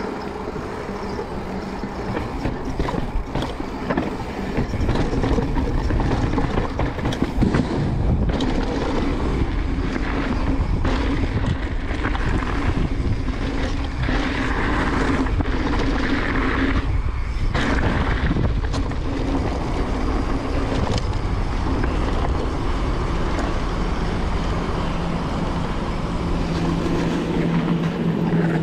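Transition Sentinel mountain bike riding down a trail: a steady rush of wind and tyre noise, with frequent knocks and rattles from the bike over rough ground.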